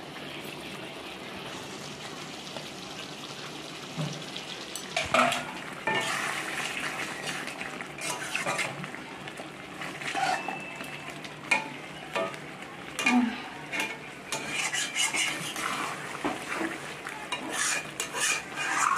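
A metal spatula stirring chicken curry in an iron kadai over a steady sizzle. From about five seconds in come irregular clinks and scrapes of metal against the pan.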